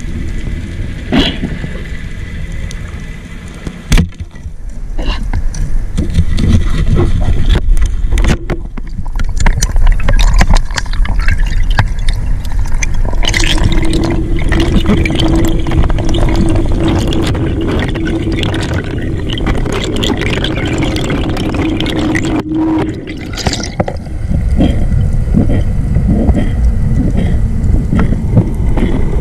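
Underwater noise of a spearfishing dive: rushing water and rumble against the camera housing, with scraping and knocks. There is a single sharp crack about four seconds in, and a steady low hum holds for about ten seconds in the middle.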